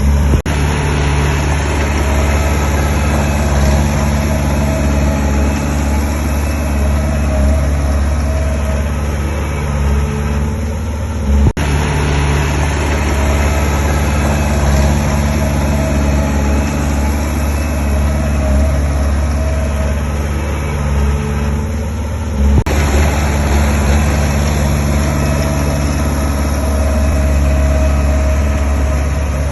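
Heavy diesel construction machinery running steadily with a deep engine rumble, broken by two sharp clicks where the sound jumps, about 11 and 22 seconds in.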